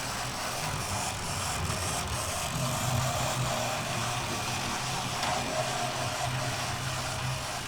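OO-gauge Oxford Rail Adams Radial 4-4-2T model locomotive running steadily along the track with a small freight train: an even electric-motor hum with wheels rattling on the rails. The motor has been freshly serviced.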